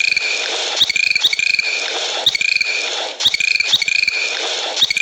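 Bird chirps recurring roughly once a second over a steady background hiss.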